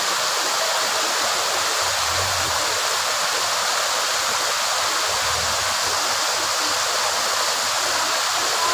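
Shallow river rushing over rocks: a steady, even rush of water. Under it an off-road 4x4's engine is faintly heard rising twice, about two and five seconds in, as it crawls through the riverbed.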